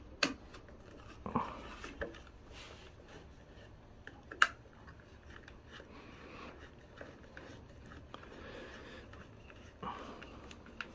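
Faint scattered clicks and light knocks from hand work on a small machine's wiring and parts, with one sharper click about four and a half seconds in.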